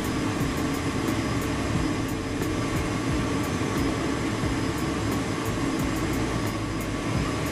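Skewered longanisa sausages frying in hot oil in a cast-iron skillet: a steady sizzling roar with many small crackles.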